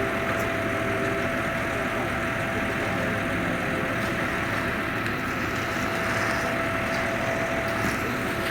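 A motor running steadily with a constant thin whine over a hissing rush and a low rumble.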